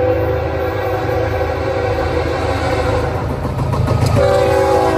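Norfolk Southern freight locomotive's multi-note horn sounding a long blast on approach, over the low rumble of its diesel engine. Just after four seconds in, as the locomotive passes, the horn's pitch drops sharply.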